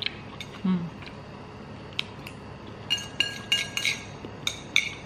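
Metal chopsticks clinking against a ceramic bowl while stirring and picking up noodles: a few scattered clinks, then a quick run of them about three to four seconds in. A brief low hum sounds under a second in.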